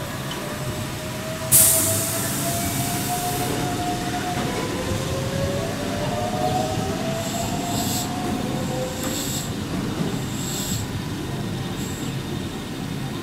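Electric commuter trains at a station platform: a sudden loud hiss about a second and a half in that fades away, and a whine that slowly rises in pitch over several seconds, over a steady rumble. Several short hisses follow later.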